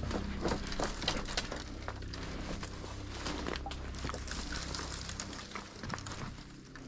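Irregular crackling and rustling of dry leaves, twigs and brush as hunters move through winter woods. A low steady hum fades out about halfway through.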